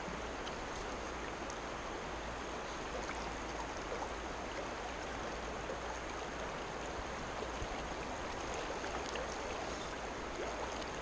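A trout stream's water running steadily around the angler.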